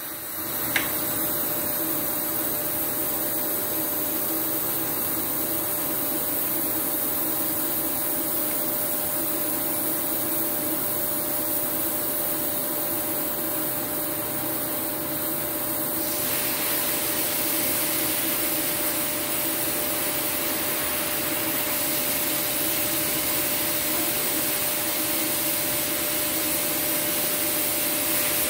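TIG welding arc burning on steel during automated welding at about 125 amps, a steady hiss with a faint hum, after a sharp click as the arc strikes about a second in. Past the middle the hiss grows fuller and brighter.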